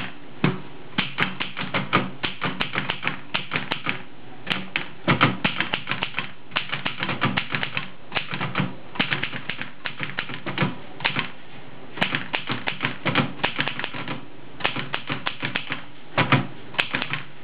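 L.C. Smith No. 8 manual typewriter being typed on: quick, irregular runs of sharp clacks as the keys drive the type bars against the platen, with brief pauses between runs.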